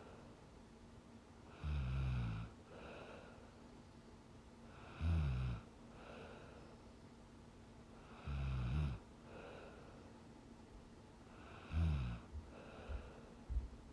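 A sleeping woman snoring: four low, rhythmic snores about three and a half seconds apart, each followed by a softer breath out.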